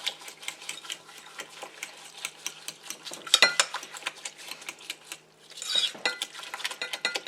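A utensil stirring a thick, wet mixture of canned clams, creamed corn, eggs and cracker crumbs in a mixing bowl: quick, irregular clicks and knocks against the bowl, with a short pause about five seconds in, then a scrape.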